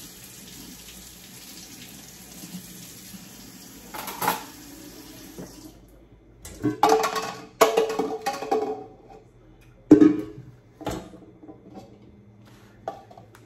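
Kitchen faucet running into a stainless steel sink while hands are rinsed, stopping about six seconds in. It is followed by a few seconds of louder splashing and clatter at the sink, then a sharp knock.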